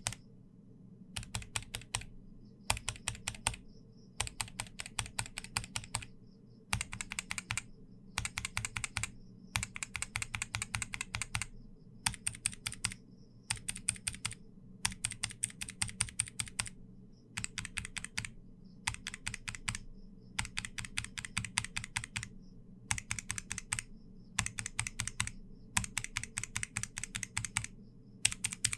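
Mechanical keyboard switches typed on in short runs of rapid keystrokes with brief pauses between them: a succession of Durock, Gateron and Huano switches, including linear, optical and clicky types, tested one after another.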